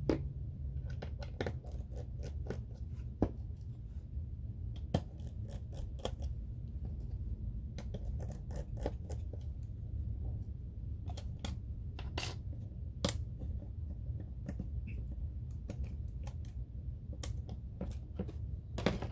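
Scattered small clicks and light metallic taps of a precision screwdriver working the tiny screws inside an iPhone 6S Plus, the screws being set down one by one. A steady low hum runs underneath.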